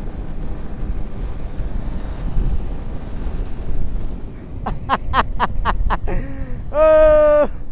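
Wind on the microphone and engine and road rumble from a moving motorcycle. About five seconds in, six quick horn beeps sound, followed near the end by one long, loud horn blast.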